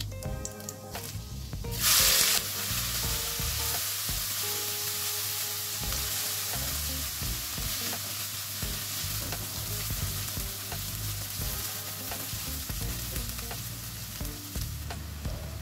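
Chopped onions dropped into hot oil with cumin seeds in a stainless steel kadai: a loud burst of sizzling about two seconds in, then steady frying sizzle as the onions are stirred with a spatula.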